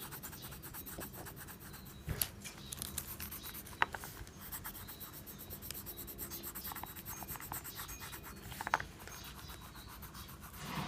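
A drawing tool scratching and rubbing on paper in quick back-and-forth strokes, as a picture is coloured in, with a few light taps along the way.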